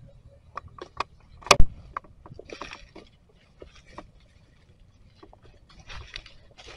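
Dry fallen leaves rustling and crackling underfoot, with scattered clicks and one sharp knock about a second and a half in.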